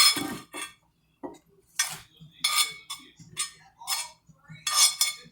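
Metal utensil clinking and scraping against dishes and pans in a series of quick, uneven clatters with a short metallic ring, as food is portioned out.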